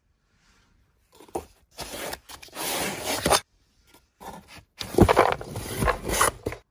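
Bursts of scraping and rubbing handling noise with a few sharp knocks. The sound cuts off abruptly to silence several times in between.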